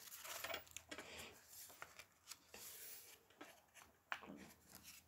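Faint rustling and soft ticks of thick paper journal pages being handled and turned by hand, with one slightly louder tick about four seconds in.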